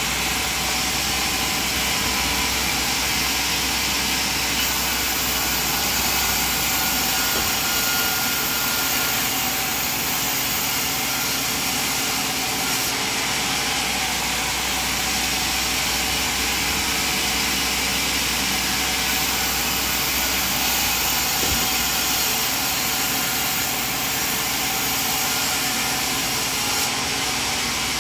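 Sawmill machinery running steadily: an even motor noise with a faint hum, unbroken throughout.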